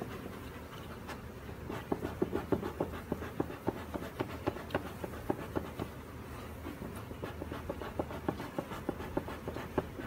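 Bee smoker's bellows worked in quick short puffs, about three to four a second, starting about two seconds in.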